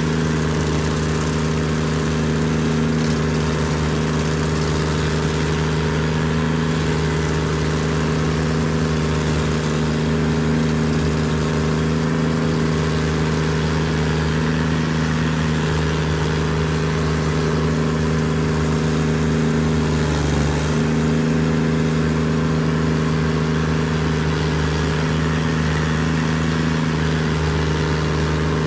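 Carlton SP7015 TRX tracked stump grinder running steadily at working speed, its cutter wheel chewing through a stump and throwing wood chips, a loud engine hum under a rough grinding noise.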